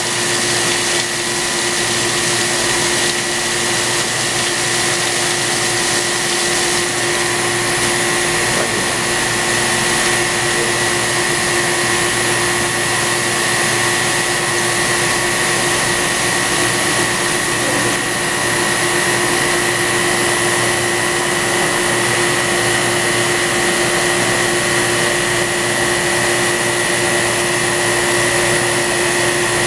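CNC cylindrical grinder running steadily while straight-grinding a metal shaft between centres: a constant machine hum with a steady whine from the spinning grinding wheel and motors. Coolant splashes over the work at first.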